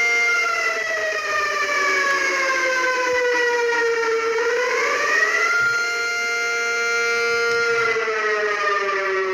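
Outdoor tornado warning siren sounding a two-tone chord. Its pitch falls slowly for about four seconds, rises back within about a second, holds steady, then begins falling again near the end.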